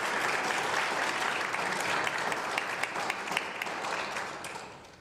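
Audience applauding, a dense patter of many hands that fades away in the last second or so.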